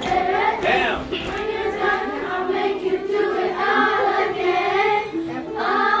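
Children's choir singing together, many young voices on sustained, wavering notes.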